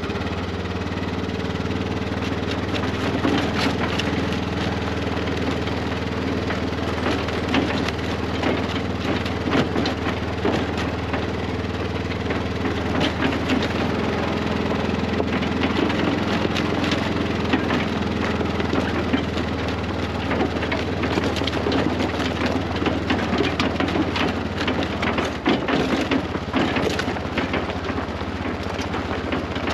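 An engine running steadily at idle, with a dense crackle of noise over it.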